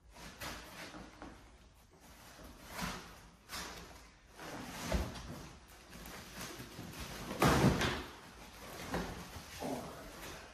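Foam packing blocks, plastic wrap and cardboard being handled as a 3D printer is unpacked: irregular rustling and rubbing with several bumps, the loudest about seven and a half seconds in.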